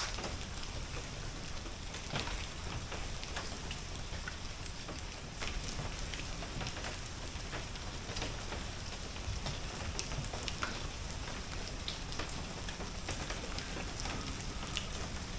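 Steady rain falling, an even hiss with scattered drops ticking on a hard surface.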